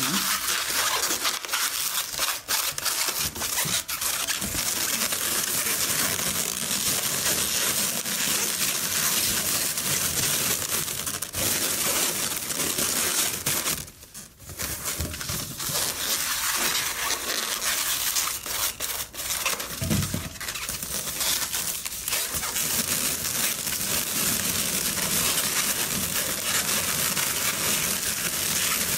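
Inflated latex twisting balloons being handled and wrapped around one another, a dense rubbing and crinkling noise with scattered clicks and a short lull about halfway through.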